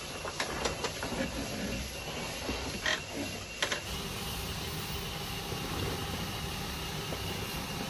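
Troller 4x4 off-roader's engine running at low revs as it crawls slowly through a deep dirt rut, with a few sharp knocks and clicks in the first half. The sound changes abruptly about four seconds in to a steadier, even engine hum.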